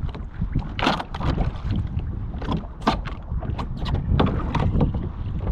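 Wind buffeting the microphone in a steady low rumble, with repeated short splashes and slaps of water against the hull of a Pelican Catch PWR 100 fishing kayak as a person standing on it shifts his weight to rock it.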